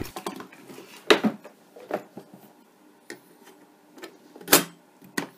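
Handling knocks and clicks of a Panasonic NC-PF30PV thermo pot's metal bottom plate and plastic housing as the pot is reassembled. A few separate knocks, the loudest about four and a half seconds in.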